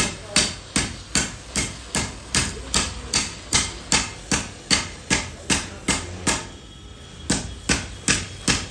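Hammer blows on metal in a steady rhythm of about three strikes a second, each a sharp ringing clang, pausing for about a second near two-thirds of the way through before resuming.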